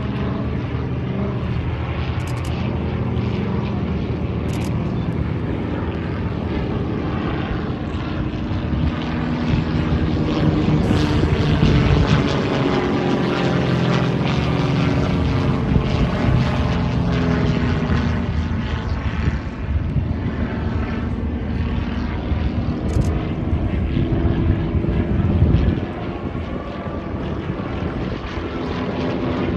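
Propeller aerobatic plane's engine droning overhead, its pitch gliding up and down as it manoeuvres, loudest about twelve seconds in.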